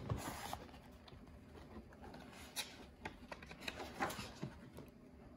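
Paper pages of a hardcover picture book being turned and handled: several faint rustles and soft taps.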